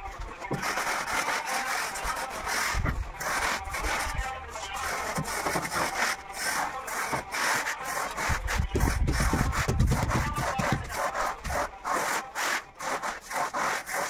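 A hand tool scraping and rubbing across a sand-and-cement floor bed in rapid back-and-forth strokes, with a few low thuds in between.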